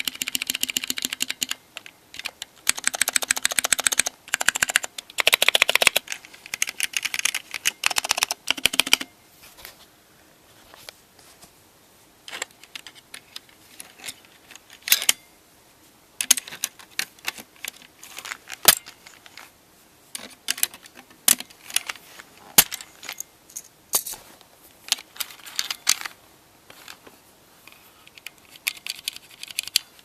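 Keys on an IBM PC Convertible 5140 keyboard with ALPS switches being pressed. There are about nine seconds of fast, dense clattering keystrokes, then slower single key clicks spaced out until the end.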